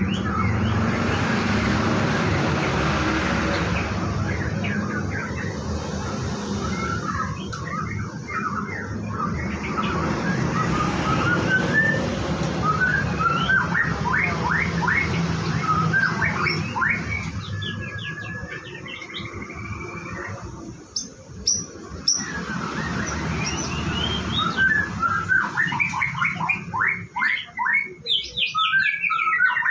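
White-rumped shama (murai batu) calling and singing: quick runs of short chirps and whistled notes, growing thickest in the last few seconds. A steady rushing noise lies underneath and fades out about two-thirds of the way through.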